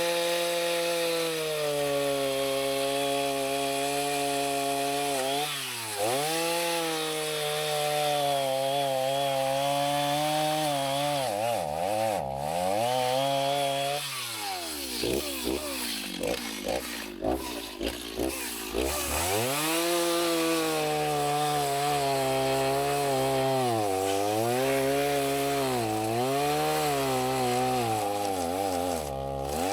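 Chainsaw running at high revs while cutting a dead white oak log, its pitch dipping again and again as it loads in the cut. About halfway through it drops to lower, uneven revs for a few seconds, then revs back up.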